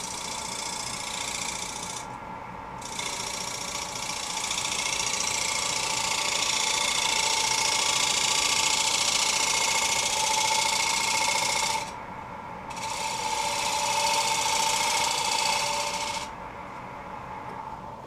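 Turning tool cutting the inside of a spinning alder plate on a wood lathe: a steady hissing scrape of the tool on the wood, lifted off briefly about two seconds in and again about twelve seconds in, then stopping about sixteen seconds in, leaving the quieter run of the lathe.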